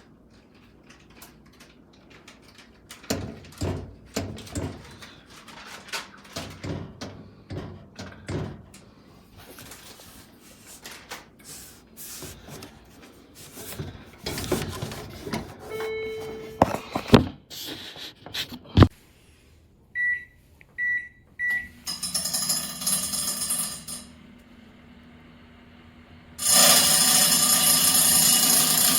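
Toshiba countertop microwave oven being handled, with a run of clicks and knocks, then three short high control-panel beeps. A steady low hum then starts as the oven runs, and a loud rushing noise joins it near the end.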